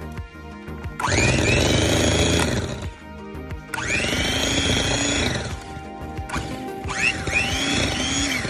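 Electric hand mixer running in three bursts, its beaters churning butter and granulated sugar: the creaming stage of a cake batter. The motor starts about a second in, stops briefly around three seconds and again near six seconds, with background music underneath.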